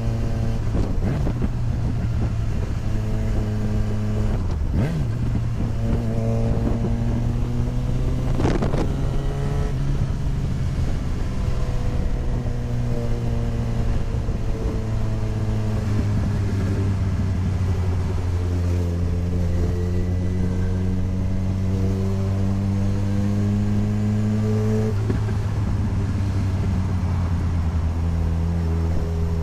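Motorcycle engine running at freeway speed with wind noise, its pitch stepping and gliding up and down as the throttle is opened and eased off while lane splitting. Two short whooshes cut through in the first third.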